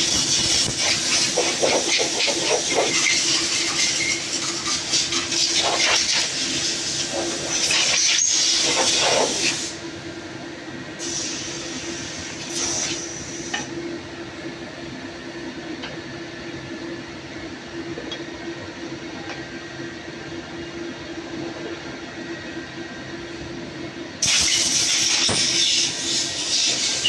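A steady hiss with a low hum under it. The hiss drops sharply about ten seconds in and comes back near the end. Over the loud first part come scattered metal clicks and scrapes as the water manifold pipe on the Cummins KTA50 engine is rotated to seat its O-rings.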